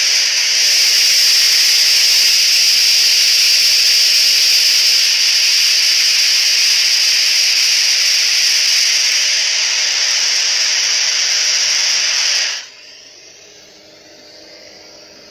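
Loud steady hiss through a PQWT-L50 acoustic leak detector, its ground sensor listening over a leaking water pipe under the floor. The hiss cuts off suddenly about twelve seconds in, leaving a faint room hum.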